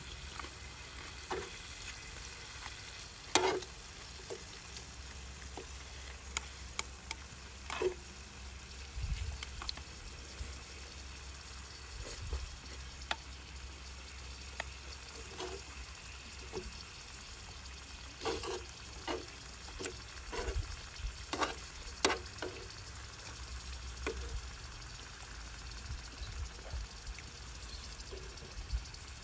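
Food sizzling on a tabletop grill, a steady hiss broken by scattered clicks and knocks. A low rumble of wind on the microphone runs underneath.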